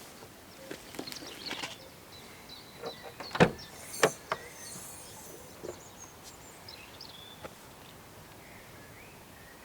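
Outdoor handling noises: a few light clicks and knocks, then two sharp louder knocks about three and a half and four seconds in, over faint bird chirps.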